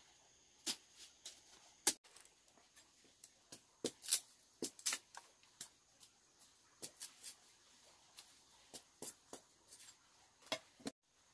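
A machete blade chopping and splitting a thin bamboo stick: sharp, irregular clicks and knocks, one or two a second, that stop abruptly shortly before the end.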